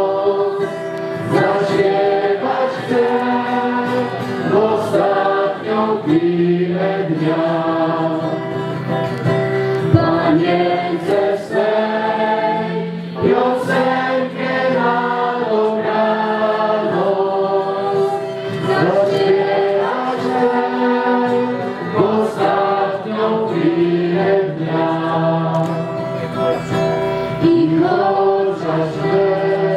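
A large crowd singing a Polish evening hymn to Mary together, many voices in a sustained, steady melody.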